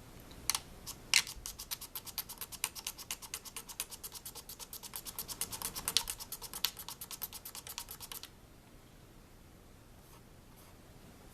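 Straight razor blade scraping quickly back and forth across a mandolin fretboard, about seven strokes a second, stopping about eight seconds in. It is scraping out a stubborn scratch left earlier by a triangle file.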